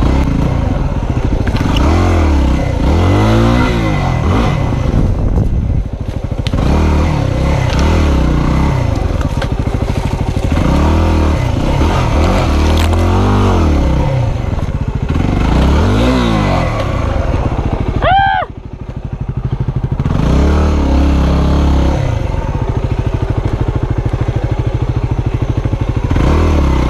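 Yamaha WR250R dual-sport motorcycle's single-cylinder four-stroke engine under load on trail, revving up and down over and over as the throttle is worked. About two-thirds of the way through, the throttle is shut and the revs briefly drop before it pulls again.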